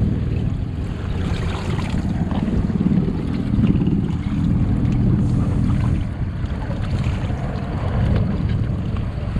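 Inflatable rubber boat under way: wind buffeting the microphone and water rushing against the hull, with an outboard motor running underneath.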